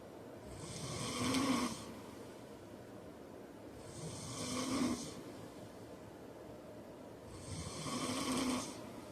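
A man snoring in his sleep: three snores, one about every three and a half seconds, each building up and then cutting off sharply, with quiet breathing between.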